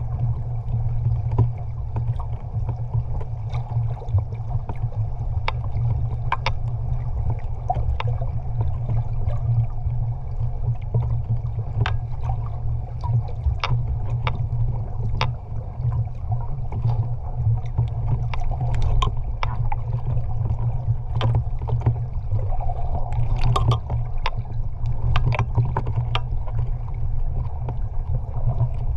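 Sea water heard through a submerged microphone near the surface: a steady low rumble of moving water, with scattered sharp clicks and crackles throughout.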